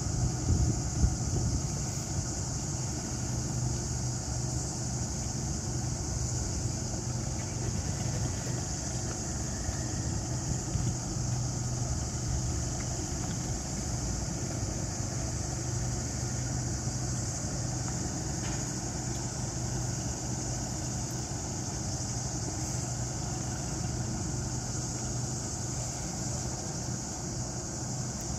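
Steady low drone of idling ship engines, with a constant high-pitched hiss above it.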